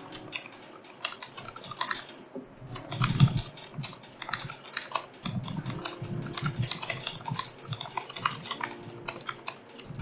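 Fast typing on a computer keyboard: a rapid, uneven run of key clicks that pauses briefly about two seconds in, with some deeper, louder thumps among them.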